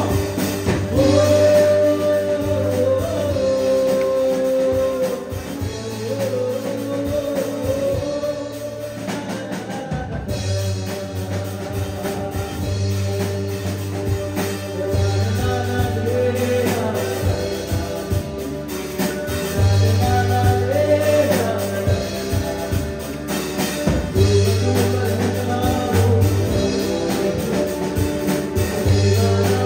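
Live band playing a song: a man singing in phrases over electric guitar, keyboard and drum kit.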